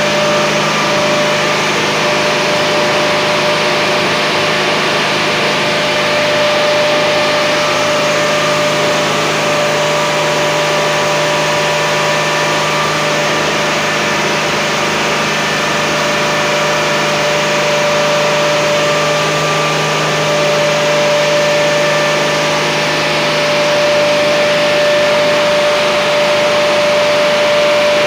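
FAWDE six-cylinder diesel engine running steadily and loudly during a full-throttle, heavy-load test, with a steady high whine over the engine noise.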